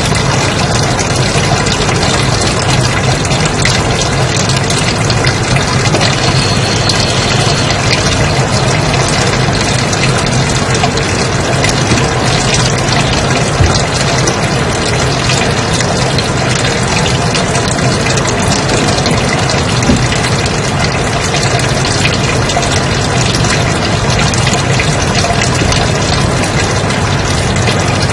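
Loud, steady white noise: an even, unbroken hiss with a low hum under it.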